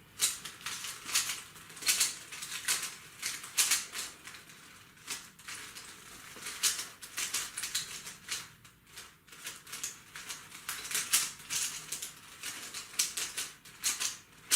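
Plastic 3x3 Rubik's cube being turned quickly by hand: layers clicking and rattling in fast, irregular runs, with a couple of short slower stretches.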